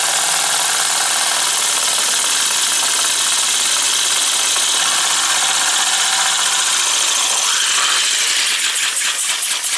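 3D-printed plastic wobbler (oscillating-cylinder) air engine running on compressed air, with a steady loud hiss of air. Near the end its separate exhaust puffs stand out as a regular beat.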